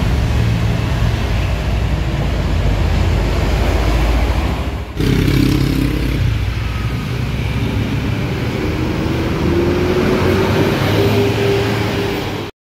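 Transjakarta city buses' engines running: a bus moving along the busway, then, after a cut, a bus at the station platform pulling away, its engine note rising steadily over the last few seconds as it accelerates.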